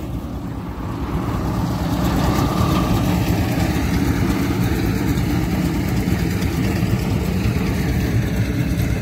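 Tractor engine running steadily while working a Krone KR 125 round baler, its level rising a little about a second or two in.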